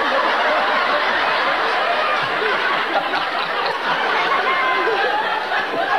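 Studio audience laughing together, a steady wash of many voices.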